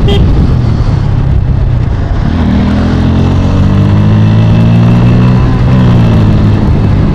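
Bajaj Pulsar N160's single-cylinder engine running under way on the street, with wind rush over the microphone; the engine note comes through clearer from about two and a half seconds in as the bike picks up speed.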